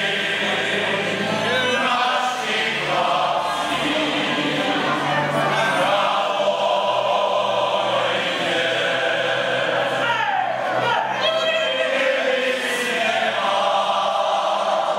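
A large group of men singing a folk song together in chorus, many voices in unison and harmony, steady and full throughout.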